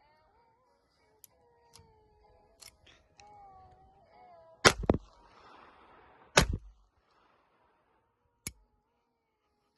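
Star Model F .22 LR pistol firing: a few sharp shots, the loudest about halfway through, a second right after it and another a second and a half later, then a weaker report near the end. Lighter clicks come before the shots.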